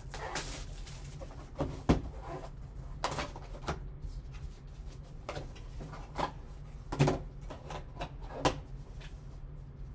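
Cardboard trading-card hobby box handled and opened by gloved hands: scattered light knocks and taps as the box and its lid are set down and lifted, about seven over the stretch, over a steady low hum.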